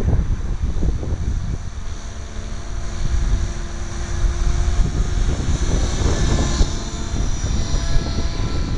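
Align T-Rex 500 electric radio-controlled helicopter flying at a distance: the whine of its motor and rotor, strongest past the middle, over wind rumbling on the microphone.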